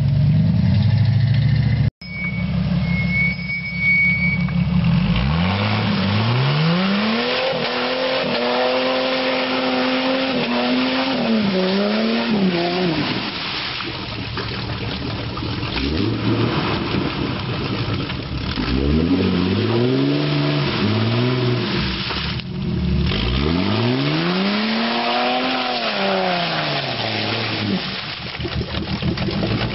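A Jeep's engine revving up and falling back about three times as its wheels spin in a mud hole, the Jeep staying in place and throwing mud. For the first two seconds a Dodge pickup's engine runs hard under power in the mud; this cuts off abruptly.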